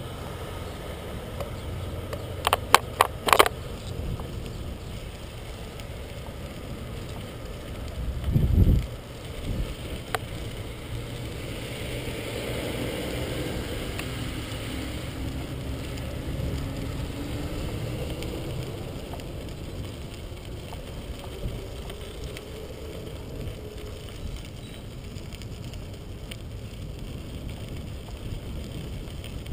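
Bicycle ride on a crushed-stone rail trail: the tyres roll with a steady low rumbling noise. A quick run of four sharp clicks comes about three seconds in, and a heavy low thump comes near eight and a half seconds.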